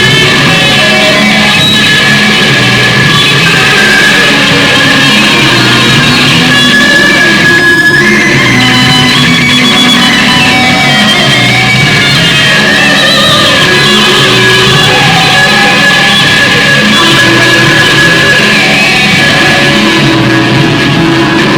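Loud rock music with guitar, dense and unbroken.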